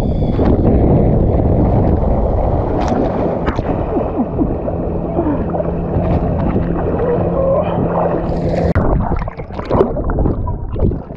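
Lake water splashing and sloshing against a wet action camera as a swimmer strokes through it. Near the end the camera goes under the surface, giving gurgling water noise.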